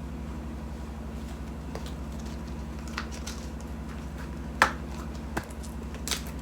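A few light clicks and taps from handling small fidget toys, the sharpest about four and a half seconds in, over a steady low hum.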